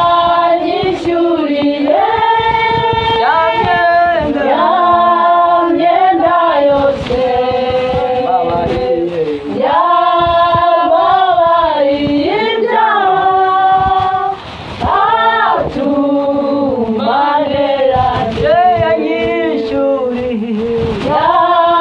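A choir singing a worship song, in long held notes that slide from one pitch to the next.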